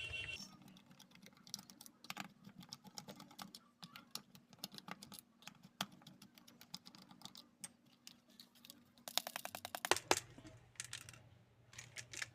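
Small screws being unscrewed from a mini Bluetooth speaker's plastic casing: faint, scattered clicks and ticks of the screwdriver and screws, with a quick run of rapid clicks about nine seconds in.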